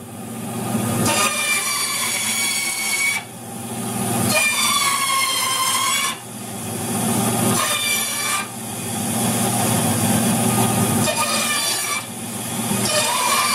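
Bandsaw with a half-inch blade running while a weathered cedar fence board is dragged sideways across the blade to scrape its face rough. Each pass makes a high-pitched scream over the motor's steady hum, about five passes in all.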